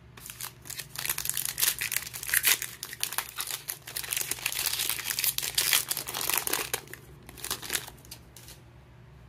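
Crinkling and tearing of a baseball card pack's wrapper as it is ripped open and the cards are pulled out, dying away near the end.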